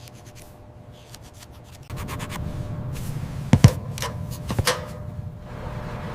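Rubbing and scuffing over a steady low rumble that starts about two seconds in, with a few sharp knocks about three and a half and four and a half seconds in.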